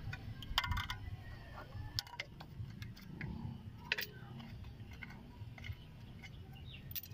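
Light metallic clicks and clinks from drum-brake parts being handled: a quick run of clicks just under a second in, then single ones spaced a few seconds apart, over a low steady background rumble.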